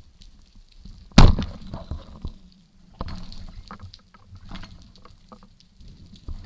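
Band-powered speargun fired underwater: one sharp, loud crack about a second in, followed by scattered fainter clicks and knocks.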